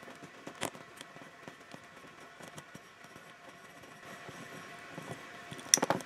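Faint small metal clicks from a bicycle chain breaker and chain in the hands as the tool is turned to push a rivet out of the chain, with one sharp click about two-thirds of a second in and a quick cluster of clinks near the end.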